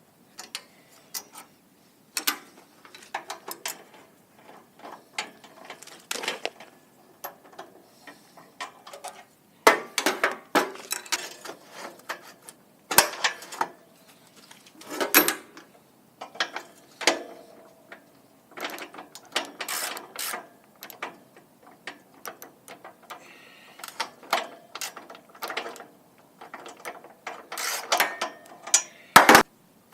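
Wrench or ratchet working 10 mm bolts on a generator's metal frame: irregular clicking and metal-on-metal clanks, with louder knocks about ten to fifteen seconds in and again near the end.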